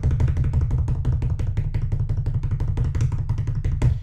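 Fingers drumming fast on a desk as an improvised drum roll, a rapid even run of taps that ends with one louder tap near the end and then stops suddenly.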